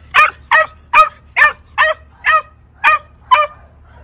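Puppy barking in excited prey drive at a prey toy it is held back from: about eight short, high-pitched barks at roughly two a second.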